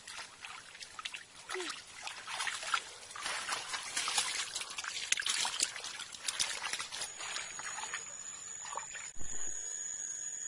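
Hands splashing and sloshing through shallow muddy water in a ditch, with irregular splashes and small wet slaps. About seven seconds in, the splashing gives way to a steady high-pitched whine.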